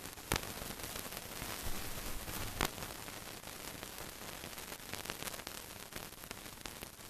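Steady hiss with scattered crackles and a couple of louder pops, a third of a second and about two and a half seconds in: the surface noise of an old film soundtrack carrying no recorded sound.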